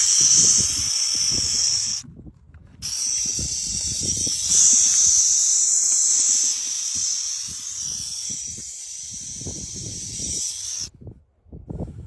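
Burrowing owl chicks giving their rattlesnake-like defensive hiss, a loud, rasping hiss at being handled in the nest burrow. It breaks off briefly about two seconds in, resumes, and stops about a second before the end, with faint rustling and knocks from the hand against the plastic pipe underneath.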